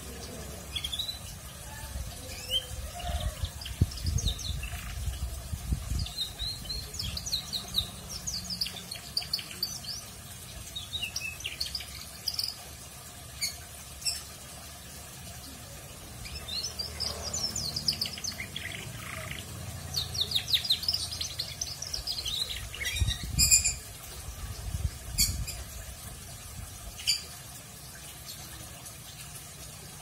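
Young domestic canary twittering, the soft chattering of a juvenile still learning its song: clusters of quick chirps and short trills broken by pauses of a second or more.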